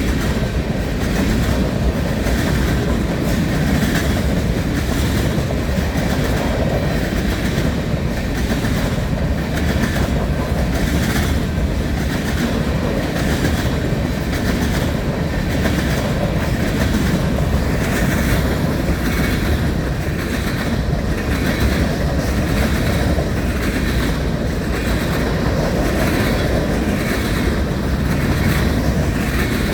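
Long freight train's cars rolling past at speed: a steady rumble of wheels on rail with a regular clickety-clack as the wheels cross rail joints.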